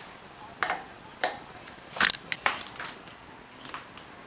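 Steel socket and extension bar clinking against the wheel's lug nuts as they are fitted on: about half a dozen sharp metallic clinks, the loudest about two seconds in.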